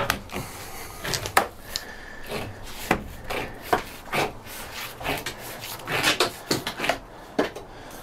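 Aluminum armor and outer jacket being peeled and pulled off a double-armored fiber optic cable by gloved hands. An irregular run of sharp crackles and snaps over scraping.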